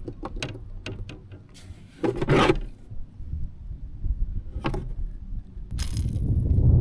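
Handling noises in a kayak while a just-caught smallmouth bass and the lure are dealt with: scattered clicks, rubs and knocks against the hull, with a longer scraping rustle about two seconds in and a low rumbling noise building near the end.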